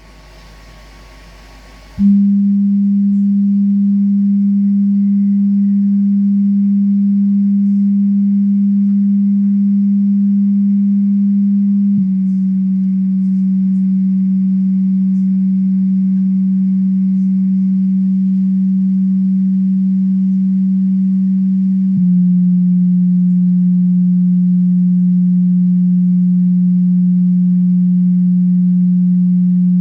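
MTX subwoofer playing steady low test tones at high volume, each held for about ten seconds before stepping down a little in pitch, twice. A short faint hiss comes just before the first tone.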